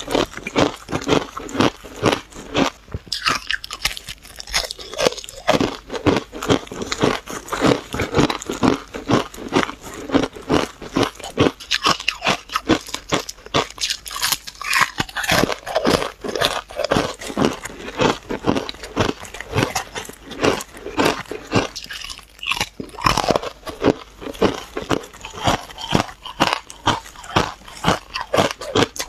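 Refrozen ice chunks coated in green powder being bitten and chewed close to a clip-on microphone: a continuous stream of crisp, rapid crunches.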